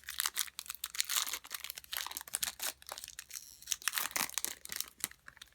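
Crinkling and tearing of a foil trading-card pack wrapper being opened by hand: a run of irregular crackles and rustles.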